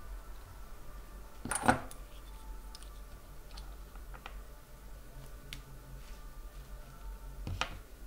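Small clicks and knocks of lockpicking pin trays and tweezers being handled on a wooden table, with one sharp knock about one and a half seconds in and another near the end, over a faint steady hum.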